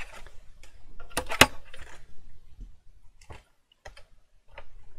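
Cardstock and a paper trimmer being handled and moved aside on a craft mat: a sharp knock about a second and a half in, then a few light taps and paper rustles.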